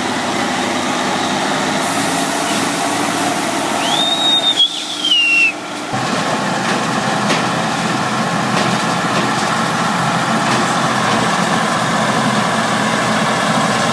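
Heavy machinery diesel engine running steadily. A brief high whistle-like squeal rises and falls about four seconds in, and the sound breaks off abruptly just before six seconds, then the engine noise carries on.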